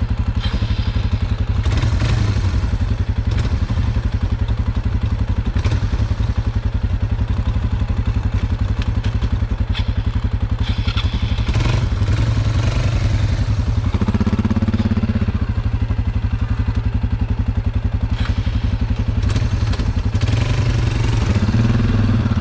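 Single-cylinder four-stroke ATV engines running at idle and low throttle: the close, steady note of a Suzuki KingQuad, together with a Yamaha Bear Tracker 250 creeping through brush. The engine note swells briefly twice, about two-thirds of the way in and near the end, and there are a few scattered knocks and rattles.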